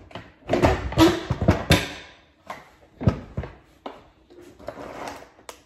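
Clatter and rustling of items being handled at a Keurig coffee maker, busiest in the first two seconds, then a sharp knock about three seconds in and a few clicks.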